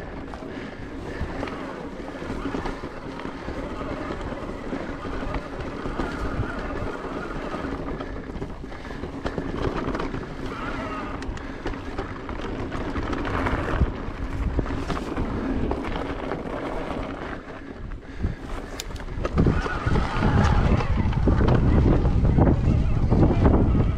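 Wind rushing over the microphone, mixed with tyre and rattle noise from an electric mountain bike riding a dirt singletrack. The low wind rumble gets much louder about twenty seconds in.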